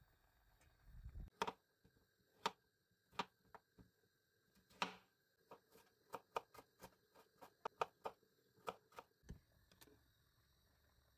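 Kitchen knife slicing shallots on a cutting board: irregular sharp taps of the blade striking the board, coming faster, about two a second, in the middle and stopping shortly before the end.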